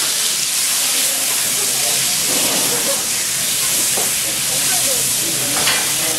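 Kobe beef steaks sizzling on a hot teppanyaki steel griddle, a loud, steady hiss of fat spitting under the meat, with one sharp click near the end.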